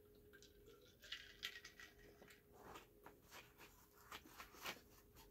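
Faint handling sounds: scattered small clicks and rustles from a glass jar of ice water and a cardboard pizza box, over a faint steady hum.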